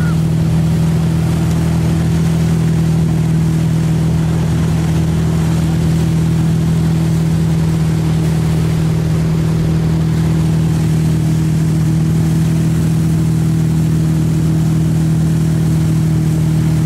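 Tow boat's engine running at a steady speed, a constant low drone that neither rises nor falls, with the rush of the churned wake water under it.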